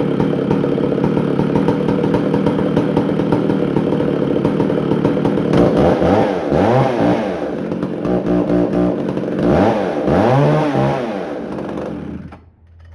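McCulloch Super Pro 125 two-stroke chainsaw engine running at a steady idle, then revved up and back down twice, and shut off near the end, freshly running again after a carburettor repair and tune-up.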